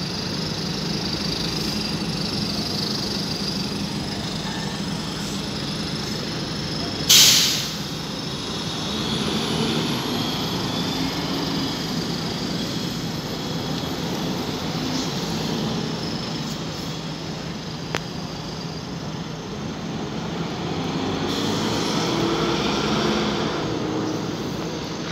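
Diesel engines of single-deck buses running as they pull away, with a short, loud hiss of air brakes about seven seconds in. Later a single sharp click.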